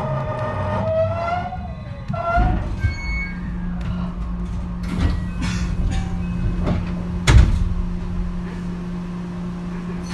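The Hitachi IGBT VVVF inverter of a JR West 223 series 3000 electric train whines downward in pitch as the train brakes to a stop. The whine ends about two and a half seconds in. A steady low hum of the standing train follows, with a few clunks and a loud thud about seven seconds in.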